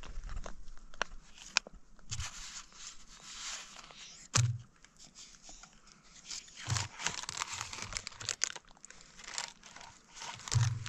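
Foil food pouch crinkling and rustling in bursts as it is squeezed and handled while a toddler feeds from it, with a few sharp clicks in between.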